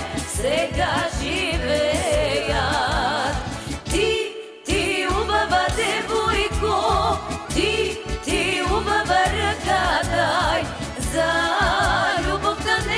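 Bulgarian folk song: women's voices singing a wavering, ornamented melody over instrumental accompaniment with a steady beat, which breaks off briefly a little after four seconds in.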